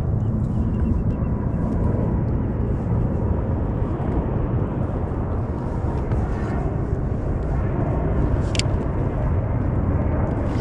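Wind buffeting the microphone at sea: a steady low rumble with no pitch, and a single sharp click about eight and a half seconds in.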